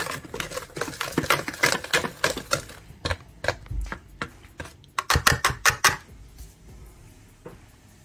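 Wire balloon whisk beating dry flour mix in a metal bowl: a quick run of ticks and rattles as the wires strike the bowl, several a second. The ticking thins out after about three seconds and comes back in a short flurry about five seconds in before dying away.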